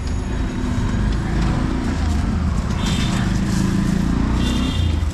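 Street traffic: vehicle engines running steadily, with a short high horn toot about three seconds in and another near the end.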